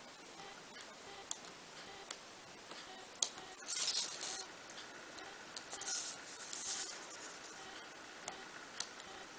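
Small pointed parchment-craft scissors snipping between perforations in parchment paper, a scatter of light, sharp clicks. Around four and six seconds in, the parchment sheet rustles as it is moved and turned.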